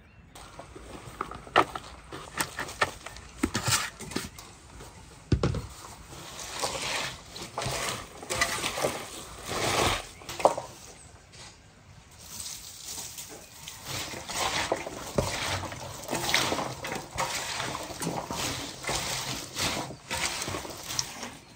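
Hands tossing and mixing shredded raw cabbage and carrot in a large metal basin: irregular crisp rustling and crunching made of many small clicks. A dull thump about five seconds in.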